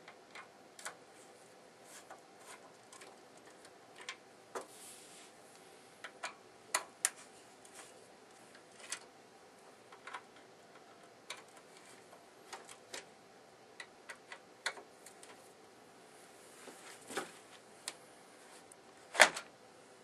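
Light, irregular clicks and ticks of a screwdriver turning out the screws that hold a liquid cooler's radiator to the back panel of a PC case, with one louder knock just before the end.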